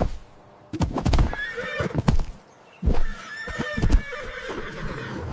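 A horse whinnying, twice: once about a second in and again about three seconds in.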